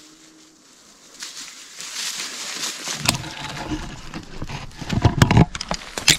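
Rustling and crackling of dry bare shrub branches, clothing and a plastic bag as a person moves and stands up among viburnum bushes, with sharp knocks and scrapes close to the microphone. It starts faint and grows louder from about a second in, loudest near the end.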